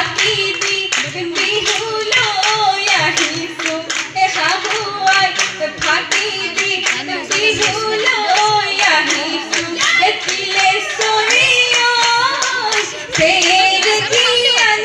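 Jeng Bihu song: several women's voices singing together over a steady, brisk rhythm of claps.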